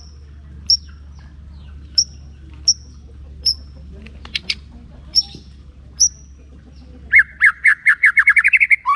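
White-rumped shama giving sharp, high single call notes about once a second, then, about seven seconds in, a fast trill of notes that speeds up and rises in pitch.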